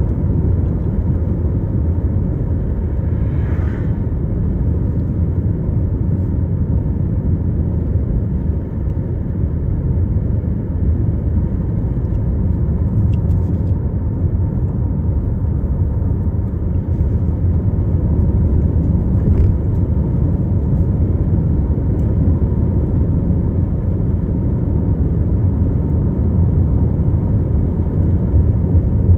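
A car driving along a road: a steady low rumble of tyres and engine, with a few faint ticks.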